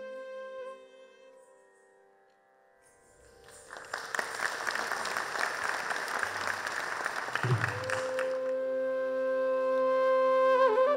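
Carnatic ensemble's last held note dies away, then audience applause for about five seconds. A steady drone then comes back in and a bamboo flute starts a phrase near the end.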